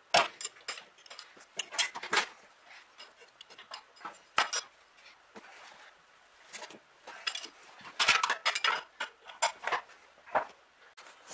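A wrench clinking on metal while the mounting bolts of a Delco-Remy starter are tightened: irregular sharp metallic clinks and clatters in bunches, busiest about eight to nine seconds in.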